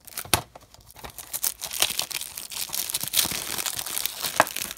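Plastic shrink wrap on a DVD case being torn open and crumpled by hand: a dense crackling full of sharp snaps, the loudest about a third of a second in and another near the end.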